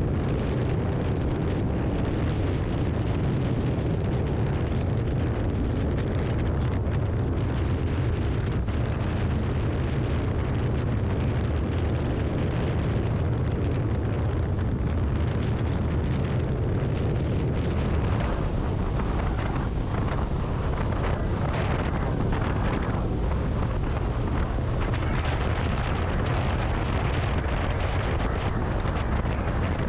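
Wind buffeting the microphone of a motorcycle riding at highway speed, over a low drone of engine and road. The rushing turns brighter a little past halfway.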